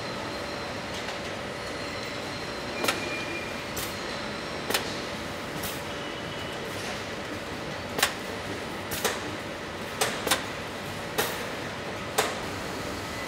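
Assembly-line factory floor: a steady machine hum with about ten sharp metallic clanks and clicks at irregular intervals from the workstation's tools and parts.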